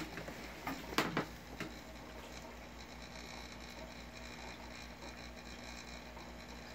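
Steady low hum and hiss of running aquarium equipment. A few sharp clicks and knocks sound in the first two seconds, the loudest about a second in.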